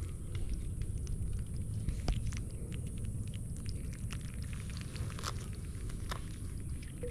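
Scattered small clicks and scratches as a blue crab is worked free of the mesh of a hoop crab net by hand, over a steady low rumble.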